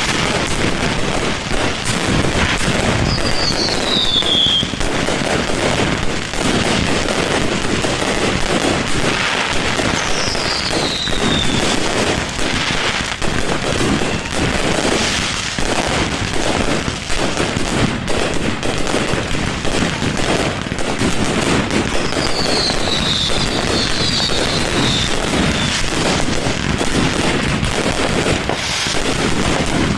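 Fireworks display: a dense, continuous run of bangs and crackling, with a few falling whistles about three, ten and twenty-two seconds in.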